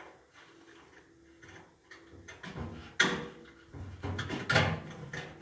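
Knocks and handling noise as a drum paddle is set into place inside a tumble dryer drum, with a sharp knock about three seconds in and another about a second and a half later.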